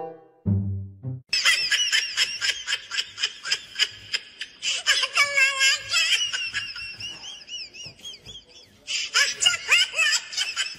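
A person shrieking and laughing in rapid high-pitched bursts while being chased by a white domestic goose; a second run of short high cries comes near the end.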